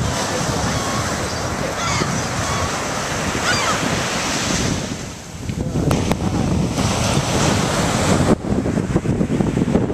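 Ocean surf breaking on the beach, with wind buffeting the microphone. A few short seagull cries come in the first few seconds.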